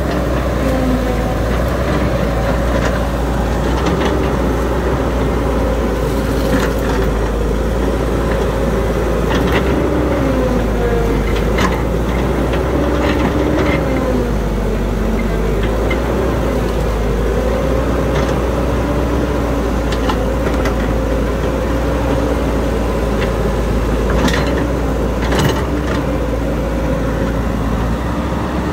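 Caterpillar hydraulic excavator's diesel engine running, its pitch dipping and recovering as the hydraulics take load while the machine swings and moves. A few sharp knocks sound over the engine.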